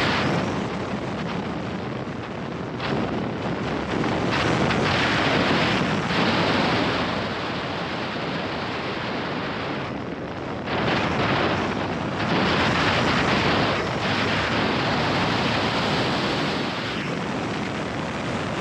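Wind roaring over a helmet-mounted action camera's microphone at riding speed, swelling and easing every few seconds, with the Royal Enfield Interceptor 650's parallel-twin engine running underneath.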